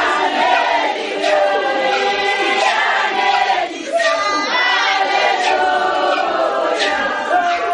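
A crowd of worshippers singing together loudly in a many-voiced chorus.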